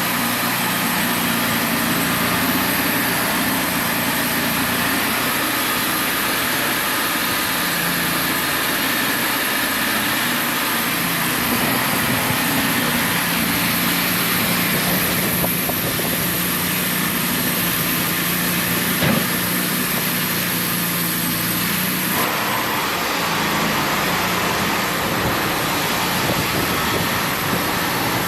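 Wood-Mizer portable band sawmill running steadily under engine power, with a high hiss over the engine tone that changes about two-thirds of the way through.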